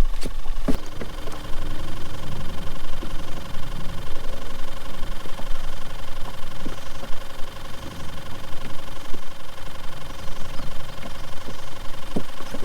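Boat motor running steadily at low speed, a constant hum with a few light knocks.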